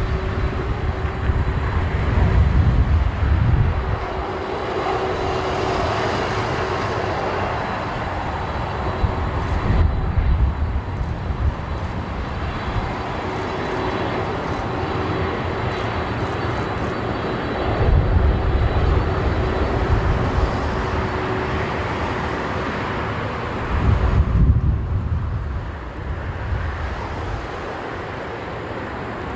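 Emirates Airbus A380's four jet engines at take-off power: steady jet noise with a faint steady whine, and deep rumbling swells that come and go, easing slightly near the end.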